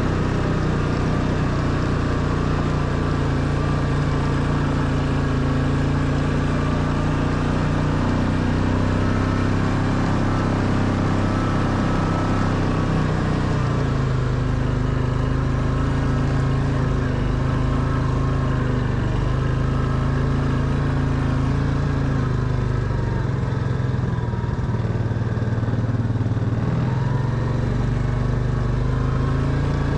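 Quad bike engine running steadily while the bike drives along a gravel track, its pitch dropping about halfway through and rising again near the end.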